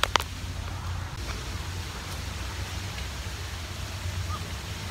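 Steady low rumble and hiss of handling and wind noise on a handheld phone microphone being moved on a selfie stick through brush, with one sharp click right at the start.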